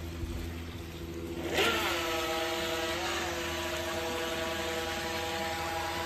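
Force1 Velocity H102 RC boat's small electric motor starting abruptly about a second and a half in, then running with a steady high whine as the boat speeds across the water. The pitch dips briefly twice before settling.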